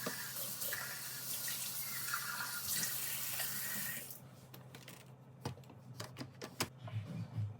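Water running from a tap for about four seconds, then stopping, followed by several sharp clicks and knocks.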